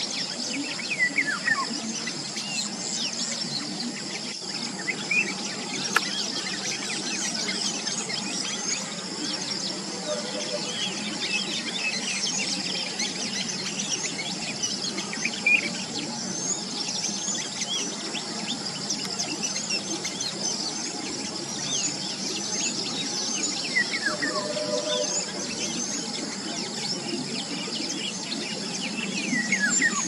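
Outdoor chorus of small birds: quick high chirps repeating every second or so, with a few longer falling calls, over a steady high insect drone. A few sharp ticks stand out here and there.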